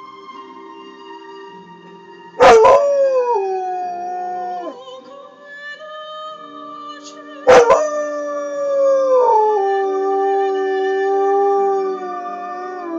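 Alaskan Malamute howling twice along with opera music playing on a TV. Each howl starts sharply and slides downward in pitch, and the second is much longer than the first.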